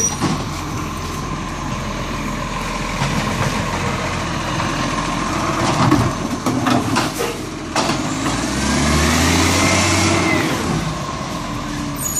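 A side-loading garbage truck's diesel engine running close by. Sharp knocks and clatters come about six to eight seconds in, and then the engine revs up with a whine that rises and falls.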